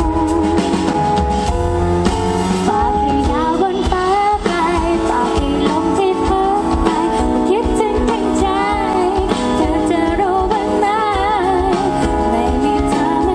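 A woman singing a Thai pop ballad live into a microphone, her voice wavering with vibrato, over a band's bass and drums.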